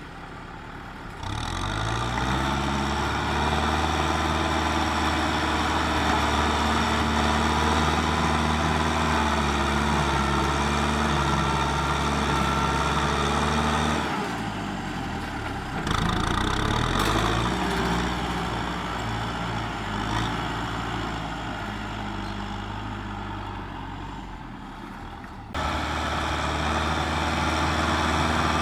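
Kubota M6040SU tractor's four-cylinder diesel engine running under load while it pushes soil with a front blade. The engine note climbs about a second in, dips and climbs again about halfway through, then slowly sags before jumping back up near the end.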